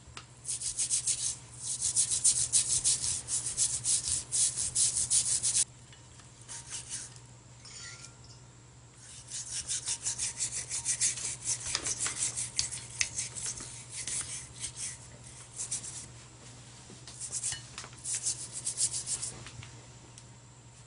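Toothbrush scrubbing the metal of a pipe wrench with mineral spirits, in fast back-and-forth strokes: a long run of scrubbing, a pause of a few seconds, then more scrubbing in shorter runs.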